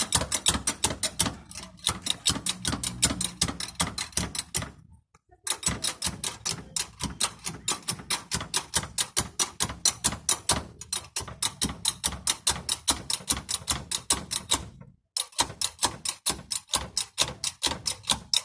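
Car jack being cranked up under a car, a rapid, even clicking of about six clicks a second that stops briefly twice.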